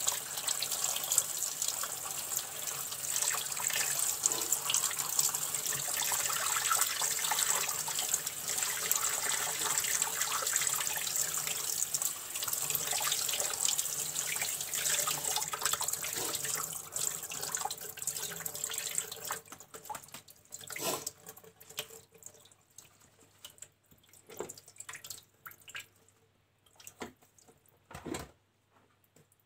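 Kitchen tap running into a sink while a bunch of leafy greens is rinsed under it by hand. About two-thirds of the way through the water stops, leaving a few scattered knocks and handling sounds.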